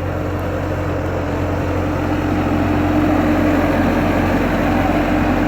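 Skid steer engine running steadily, gradually getting louder.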